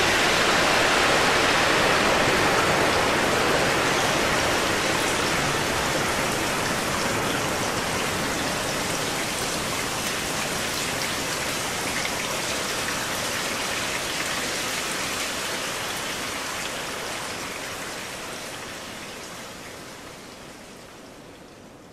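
Rain texture from the Omnisphere 2 patch "Gotham Rains", built on a field recording of night rain: a steady hiss of falling rain. It is loudest at the start and slowly dies away toward the end.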